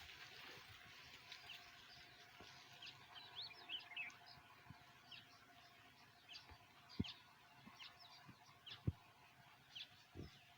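Faint outdoor ambience with small birds chirping: many short, quick high calls scattered throughout, with a few soft knocks, the sharpest about seven and nine seconds in.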